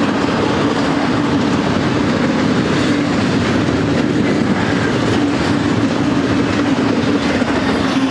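Double-stack intermodal train's well cars rolling past: a loud, steady rumble and clatter of steel wheels on rail, with a steady low hum running through it.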